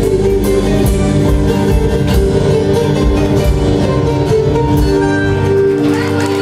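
Live band of acoustic guitar, electric bass and drum kit playing long held notes with cymbal hits. The music stops near the end, closing the song.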